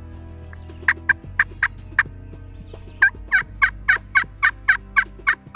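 Turkey yelping: a short run of about five yelps, then after a pause a longer, even run at about four yelps a second, the hen-style calling used to draw in a gobbler.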